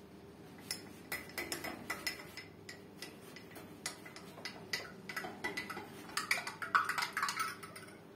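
A metal spoon clinking rapidly against the inside of a drinking glass as it stirs starch into water. The quick, irregular clinks start about a second in and are loudest near the end.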